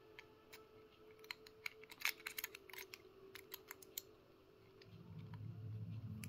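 Light metallic clicks and scrapes of a homemade bicycle-spoke lever pick being worked into the keyway of a Fire Brigade FB14 lever padlock, scattered and busiest in the middle. A low steady hum comes in about five seconds in.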